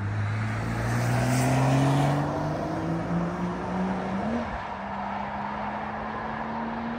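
Road traffic at a roundabout: a car drives past with its engine note rising steadily as it accelerates. The pitch drops once about four seconds in and then holds steady. Tyre noise peaks about two seconds in.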